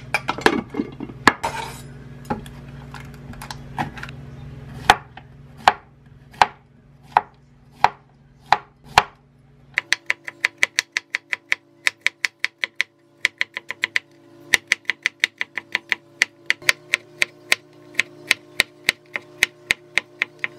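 Snap-lock food container and lid clattering against a wooden cutting board. Then a kitchen knife slices a Korean zucchini on the board in separate, evenly spaced strokes, and from about halfway it chops it finely, about three quick knife strikes a second.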